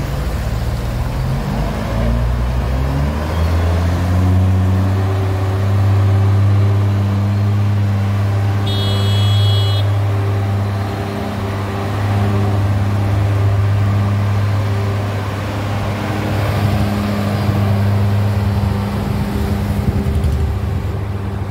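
A large engine climbs in revs in steps over the first few seconds, then runs steadily at a high, even pitch. A short high-pitched tone sounds about nine seconds in.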